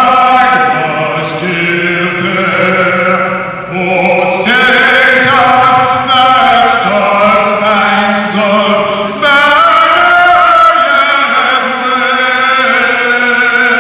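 A solo voice singing a slow piece in long, held notes with vibrato.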